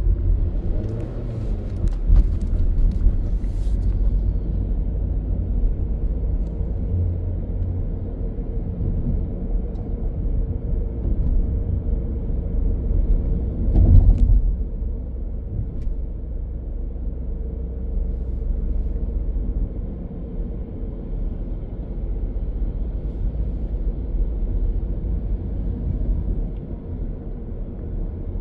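Car driving on a city street: a steady low rumble of engine and tyre noise, with a brief louder surge about halfway through.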